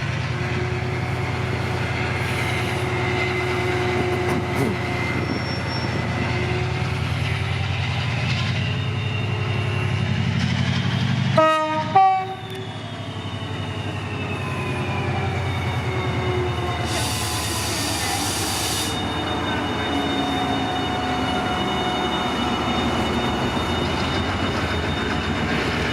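DRS Class 68 diesel-electric locomotive (Caterpillar V16 engine) pulling away with its train, the engine running with a steady low drone. About halfway through it gives a short blast on its horn, followed by tones falling in pitch as it moves past, and a brief hiss a few seconds later.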